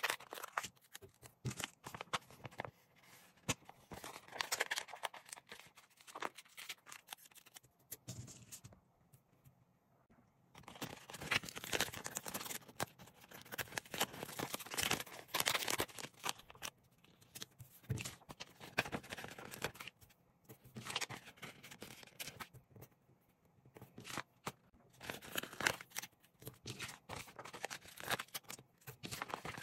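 Stickers being peeled off a glossy sticker sheet and rubbed down onto paper by hand: crinkling, tearing rustles in irregular bursts, with two short pauses, about a third and about three quarters of the way through.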